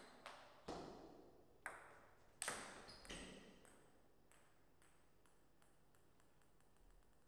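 Celluloid-style table tennis ball in a rally: sharp pings of paddle hits and table bounces, the loudest about two and a half seconds in, ending a little after three seconds. Then a string of faint, quickening taps as the ball bounces away and settles.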